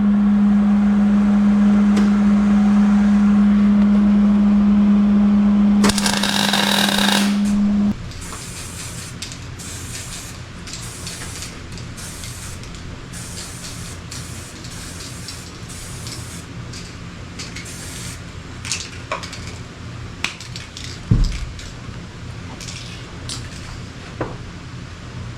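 MIG welding on a steel receiver hitch, a loud steady crackling hiss over a constant hum for about six seconds. Then a short burst of aerosol spray paint for about a second. After that it is much quieter, with scattered light clicks and a single thump near the end.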